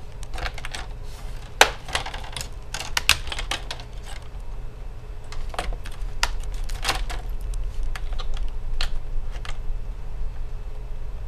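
Plastic laptop screen bezel being pried loose with a screwdriver and fingers: irregular sharp plastic clicks and snaps as its clips pop free one by one, the loudest about one and a half seconds and three seconds in.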